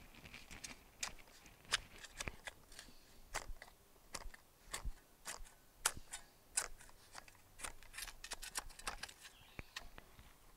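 Irregular crunching and scraping of soil and mulch being dug and worked by hand, a few sharp crunches each second, thinning out near the end.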